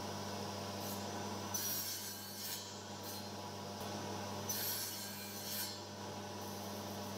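Table saw running with a steady hum while a crosscut sled carries a small plywood piece through the blade, with two spells of rasping, wood-on-blade and sliding noise, one about one and a half seconds in and one about four and a half seconds in.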